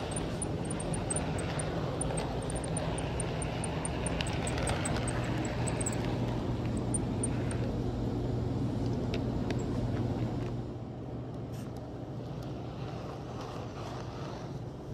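HO-scale model train running along its track: a steady electric hum with a rapid high ticking over the first six seconds. It gets quieter about ten and a half seconds in.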